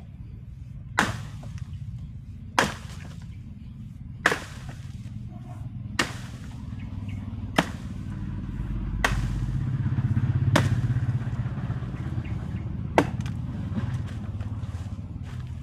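A felling axe chopping into wood: eight sharp strikes, about one every second and a half, with a longer pause before the last. A low rumble underneath swells around the middle.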